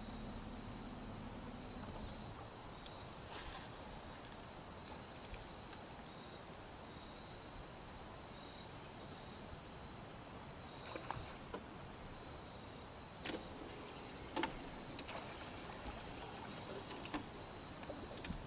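Steady, fast-pulsing high insect trill, with a few scattered knocks and clicks, the loudest about two-thirds of the way through. A faint low hum stops about two seconds in.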